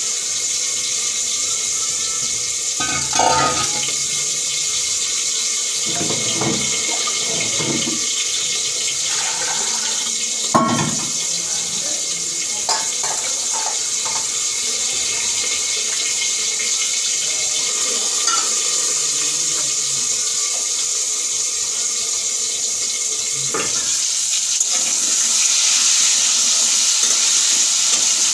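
Kitchen tap running steadily, with several short clinks and clatters of metal pots and utensils. Near the end the hiss brightens and grows a little louder as food starts sizzling in oil in the pan.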